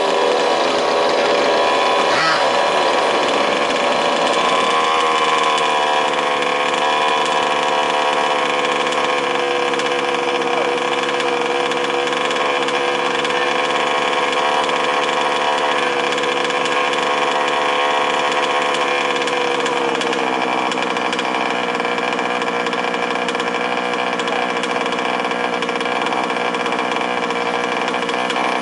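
Several 1/5-scale RC off-road cars' small two-stroke petrol engines idling together. The pitch wavers in the first few seconds as throttles are blipped, then settles into a steady drone.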